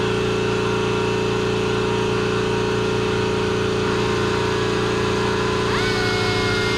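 A hand drill running steadily as it bores through aluminium sheet. Its whine rises in pitch once, near the end.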